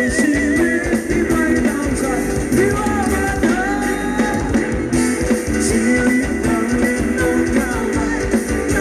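Live Thai ramwong dance band music: electric guitar over a steady drum beat, with a melody line that bends and wavers.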